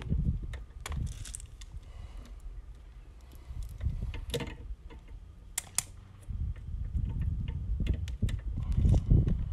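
Scattered light clicks and ticks of cutters and wire being handled at a metal electrical disconnect box, over an uneven low rumble.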